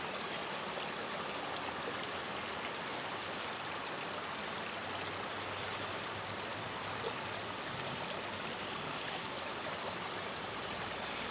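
Forest creek running over rocks: a steady rush and trickle of flowing water.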